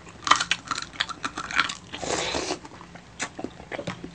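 Close-miked eating: crunchy bites and chewing of watermelon and deep-fried pork knuckle. A sharp crunch comes about a third of a second in, and a longer crunching bite comes around two seconds in, with small mouth clicks between.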